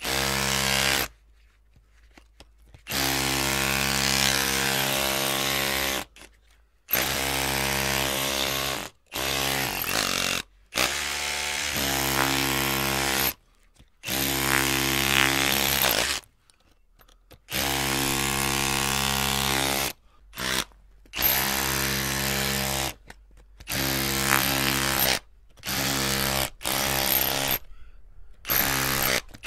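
Electric drill motor running in about a dozen short runs, each starting and stopping abruptly and lasting from under a second to about three seconds, with brief silences between. It is a steady whine with a hiss over it.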